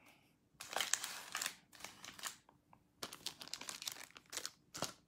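Trading card pack wrapper crinkling as it is torn open and handled by hand, in two stretches: the first from about half a second in, the second from about three seconds in.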